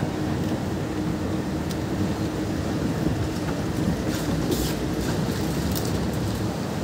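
Shopping-mall ambience: a steady low rumble of the building and crowd, with a few faint clicks and clatter.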